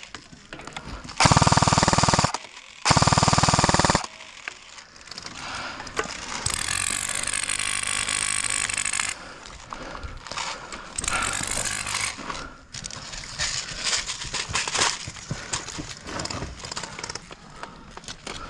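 Airsoft electric gun (S&T M249 AEG) firing two full-auto bursts of about a second each, a rapid mechanical rattle of the motor and gearbox cycling. Quieter firing and clatter follow.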